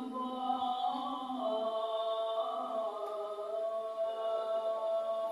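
A man's voice chanting the adhan, the Islamic call to prayer, in long held notes that slide slowly from pitch to pitch.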